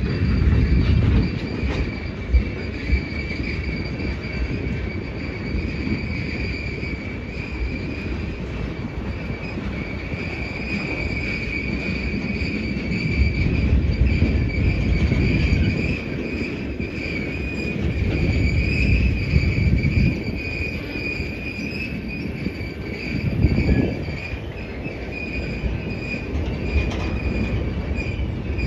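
Flatcars of a military freight train rolling past: a low rumble that swells and fades as cars go by, with a few sharp knocks from the wheels and a steady high-pitched squeal throughout.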